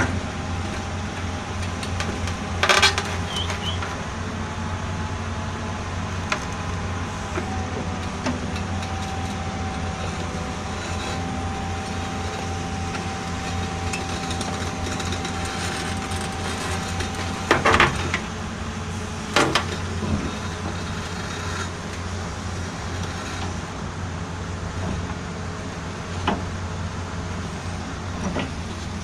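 Caterpillar excavator's diesel engine running steadily, with a thin steady whine through the middle stretch and a few sharp knocks, the loudest about two-thirds of the way through.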